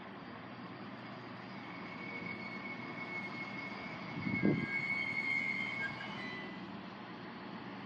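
DB Class 642 Desiro diesel multiple unit running in slowly on its diesel engines. A high, steady brake squeal starts about two seconds in and stops about six seconds in. A brief low thump comes about halfway through.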